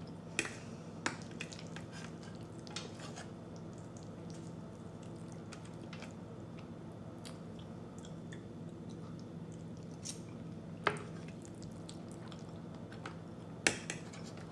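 Eating sounds: a fork clinks and scrapes on a plate while twirling creamy linguine, with soft wet chewing. A few sharp clicks stand out, the loudest late on, over a faint steady low hum.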